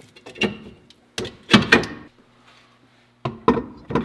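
Metal clunks and knocks of a car's rear wheel and brake parts being fitted back onto the hub, in three short bursts, the loudest about a second and a half in.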